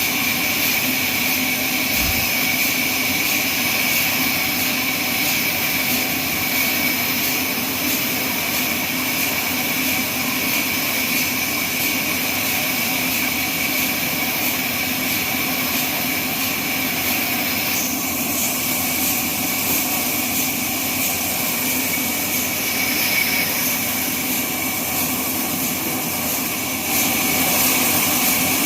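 Band sawmill running steadily, a continuous machine noise with a high whine, getting louder near the end.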